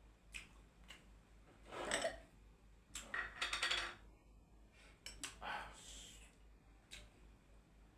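Cutlery clinking and scraping against a dish while eating, in three short bursts with a few sharp clicks between them.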